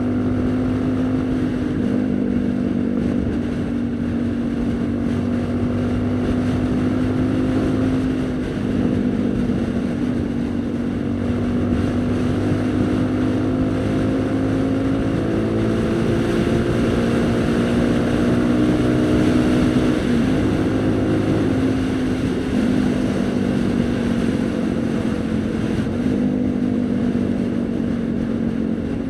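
Haojue NK150 motorcycle's small single-cylinder engine running under way, its note climbing slowly and dropping back abruptly several times, with wind noise on the microphone.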